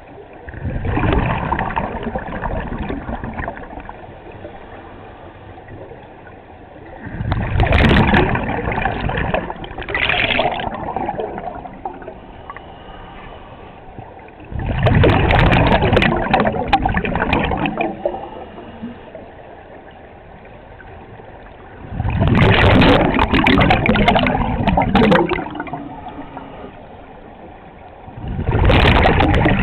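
Scuba regulator breathing underwater: a loud bubbling rush of exhaled air lasting three to four seconds, repeating about every seven seconds, with quiet stretches between breaths.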